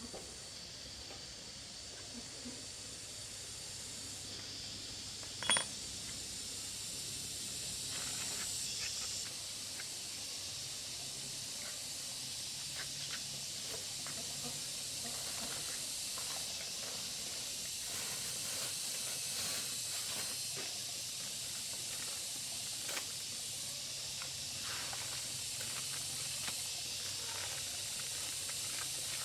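Steady high hiss that builds gently over the first several seconds, with scattered light clicks and one sharp knock about five and a half seconds in.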